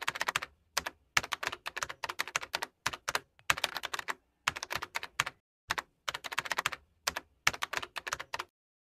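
Computer keyboard typing: quick runs of key clicks broken by short pauses, stopping shortly before the end.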